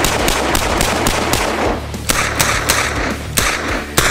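Korth NXS .357 Magnum revolver fired in a rapid string of shots, about three or four a second, over background music with a steady bass.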